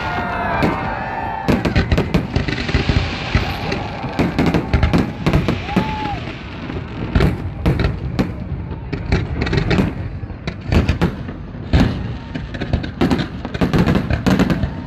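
Aerial fireworks display: shells bursting in many loud bangs in quick, irregular succession, with crackling between them.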